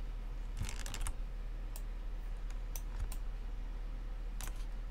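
Computer keyboard keystrokes and mouse clicks, scattered: a quick run of clicks about half a second in, single clicks through the middle and a pair near the end, over a low steady hum.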